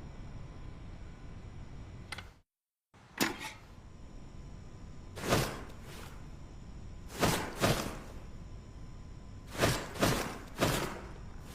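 Hatchet blows, about eight sudden strikes at uneven spacing, some in quick pairs. The sound drops out to dead silence for half a second about two and a half seconds in.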